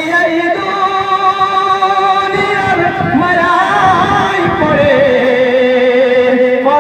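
A man singing a Bangla Islamic gazal through a microphone, drawing out long held notes without words. The pitch wavers slightly, slides around the middle, and settles on a lower sustained note near the end.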